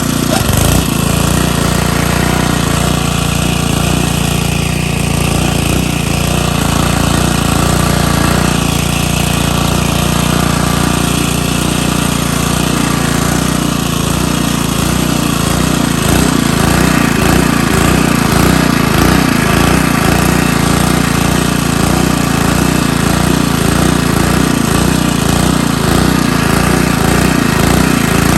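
Small gasoline engine running steadily at a constant speed, with a fast, even low pulsing.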